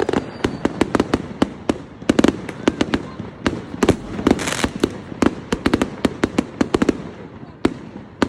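Many New Year fireworks going off at once: a dense, irregular run of sharp bangs, several a second, over a continuous rumble.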